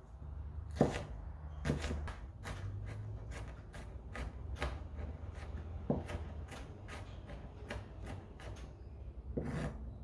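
Kitchen knife finely chopping garlic cloves on a chopping board: irregular sharp taps of the blade, about two a second.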